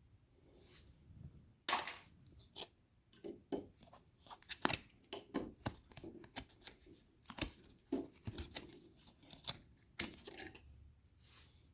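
Faint, irregular clicks, taps and short scrapes of hand tools and parts being handled as a battery pack is taken apart.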